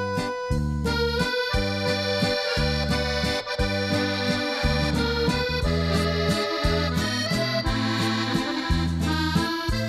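Instrumental background music: a melody over a steady, regular bass-and-chord accompaniment.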